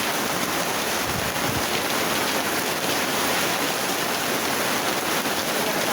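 Heavy tropical downpour: a steady, dense rush of rain.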